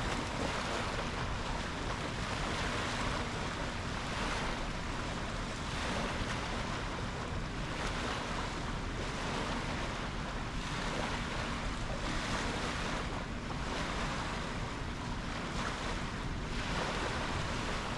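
Ocean waves washing and breaking in continuous succession, the surge swelling and easing every couple of seconds, with wind rushing over the microphone.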